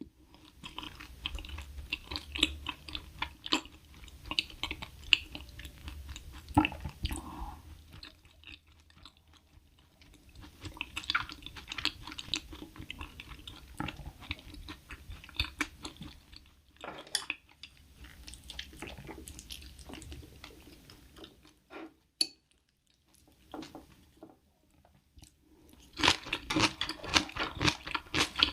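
Close-miked eating sounds: a person chewing food with wet mouth sounds and crisp, crunchy bites, in bouts broken by short pauses, with a louder run of crunching near the end.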